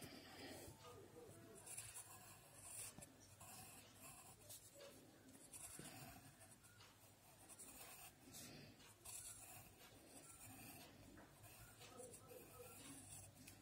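Faint scratching of a graphite pencil drawing lines on paper, in short, irregular strokes with brief pauses between.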